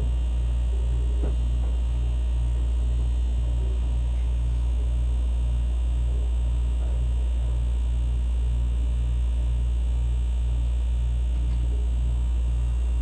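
Steady low rumble of a train heard from inside the carriage, with a deep pulsing throb repeating about one and a half times a second, typical of a diesel railcar's engine.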